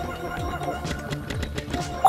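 Cartoon background music with held tones over a light, regular beat.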